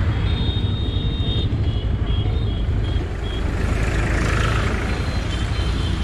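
Motorcycle riding along a wet road: a steady low rumble of engine and wind on the camera's microphone, with a hiss swelling about four seconds in and a few short high-pitched beeping tones in the first half.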